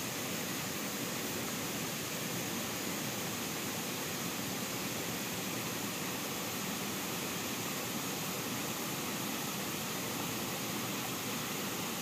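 Steady rush of a shallow forest stream flowing over rocks, an even hiss of moving water that holds at one level throughout.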